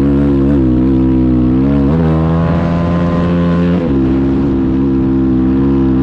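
Dirt-bike engine pulling hard under load up a steep sand dune, held at high, steady revs. The pitch dips and shifts about two seconds in, and steps back up near four seconds.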